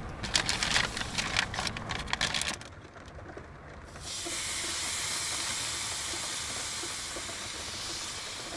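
A plastic zip-top bag crinkling for about two and a half seconds. About four seconds in, hamburger patties start sizzling in a hot carbon steel pan, a steady hiss.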